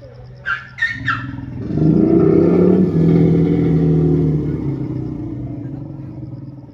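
Asian elephant giving a long, deep growling roar that sounds like a motorbike engine, loudest two to four seconds in and then fading. Three short higher-pitched sounds come just before it, in the first second.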